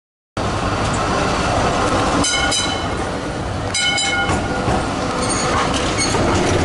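Trams running on a busy city street: a steady rumble and traffic noise, broken a few times by short high-pitched ringing tones.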